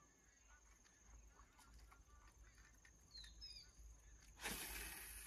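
Near silence with a few faint, high bird chirps a little past halfway through, then a soft hiss starting near the end.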